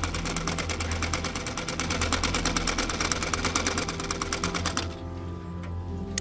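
Animated robot's mechanism clicking rapidly and evenly, about a dozen clicks a second, like a fast ratchet, stopping abruptly about five seconds in. Soft background music runs underneath.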